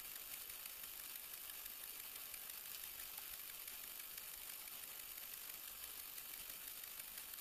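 Steady faint hiss with a thin high whine running through it: recording noise, with no distinct sound from the esparto plaiting.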